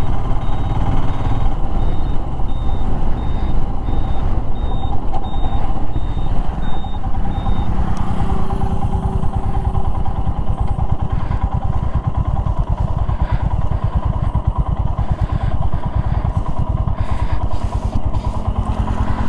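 Royal Enfield Himalayan's single-cylinder engine running steadily at road speed, heard from the rider's seat. A high, even beeping at about two beeps a second sounds over it and stops about eight seconds in.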